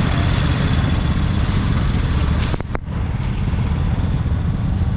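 Riding lawn mower engine running steadily with a heavy low rumble, briefly dropping out with a couple of clicks a little past halfway.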